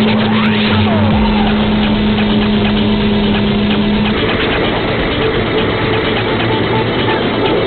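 T-150K tractor's six-cylinder diesel engine running under load while pulling a plough, a loud steady drone whose pitch steps up about four seconds in.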